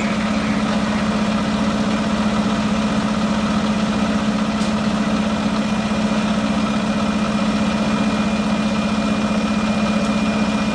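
Aerial ladder fire truck's diesel engine idling steadily, an unchanging hum with a faint high whine above it.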